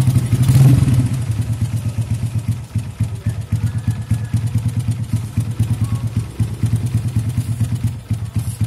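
Yamaha Vega ZR four-stroke single-cylinder engine running through a custom aftermarket exhaust. It is blipped up about half a second in, then drops back to a steady idle with an even, rapid exhaust pulse.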